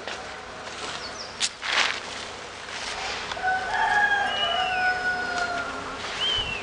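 A rooster crowing: one long drawn-out crow about three seconds in, with a shorter falling call near the end. A short rustling clatter about a second and a half in is the loudest moment.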